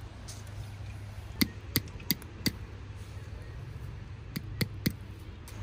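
A series of sharp knocks or taps of hard objects, four close together and then three more near the end, over a low steady rumble.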